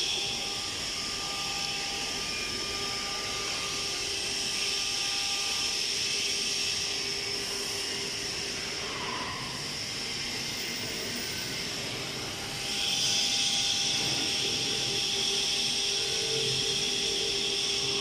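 ATC CNC router machinery running through its automatic tool-length setting, a steady whine over a hiss. It gets louder about thirteen seconds in.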